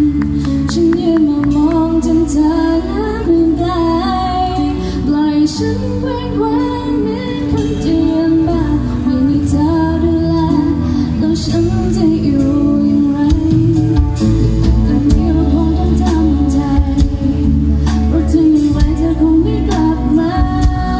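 Live pop band playing: a female singer sings the melody into a microphone over electric guitar and a drum kit, with a steady beat.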